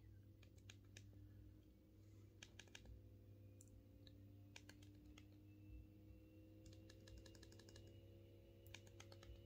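Faint clicking of the Punkt MP02 phone's physical keypad buttons being pressed, in short clusters of presses a second or two apart, over a low steady hum.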